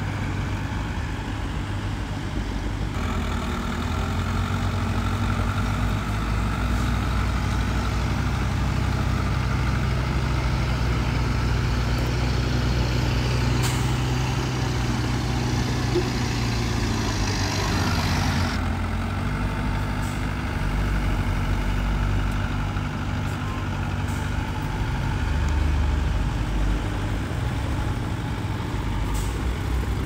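Heavy earthmoving machinery's diesel engine running steadily, picking up about three seconds in. From about twelve seconds a rushing hiss rides over it and cuts off suddenly about six seconds later.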